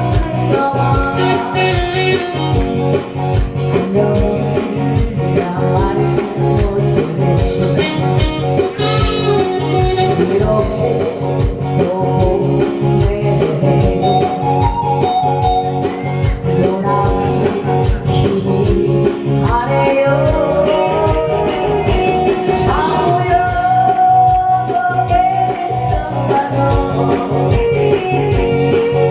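Loud music with a steady beat and guitar, with singing at times: a song performed over a backing track.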